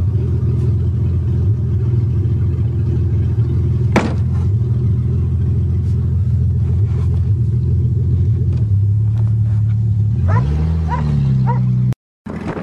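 1982 Toyota Cressida's engine and road noise heard inside the cabin while driving, a steady low drone with one knock about four seconds in. Near the end the engine note rises and levels off, with a few short high-pitched chirps, then the sound cuts off suddenly.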